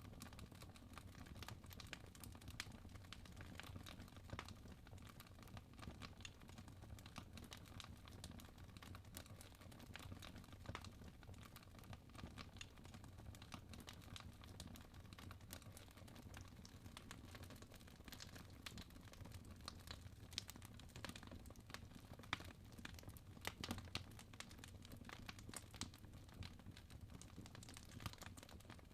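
Wood fire in a fireplace crackling softly: a steady stream of small snaps and pops, with a few sharper pops in the second half, over a low steady hum.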